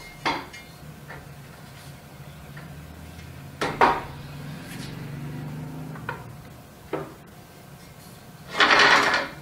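Parts of a screen printing press being taken off and handled: a few sharp knocks, the loudest about four seconds in, and a scrape lasting under a second near the end, over a low steady hum.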